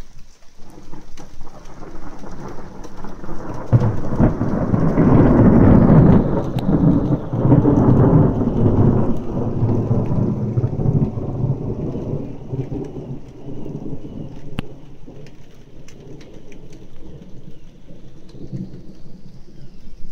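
Thunder rumbling in a severe thunderstorm, over steady rain. The rumble builds from about a second in, is loudest for several seconds, then slowly fades away.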